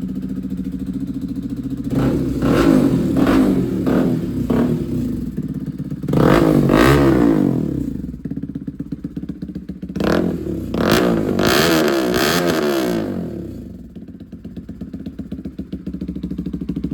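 Bajaj Pulsar NS200's single-cylinder engine idling, then revved through its exhaust in an exhaust sound test. About two seconds in come several quick blips, then two longer revs, each falling back to a steady idle.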